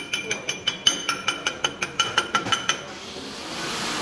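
Chipping hammer rapping on a steel weld, about six quick ringing metallic taps a second, knocking slag off the bead. The taps stop about three seconds in and a steady frying hiss of an electric welding arc takes over.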